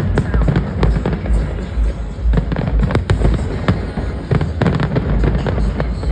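Fireworks display going off: a rapid run of sharp bangs and crackling bursts, several a second, over a continuous low rumble of booms.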